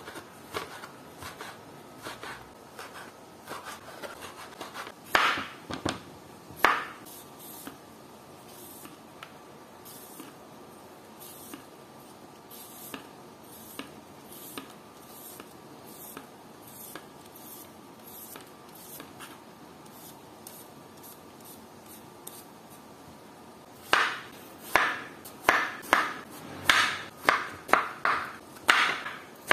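Quiet scraping and rubbing with a couple of sharp knocks, then near the end a knife starts chopping on a cutting board in a quick, even run of strokes.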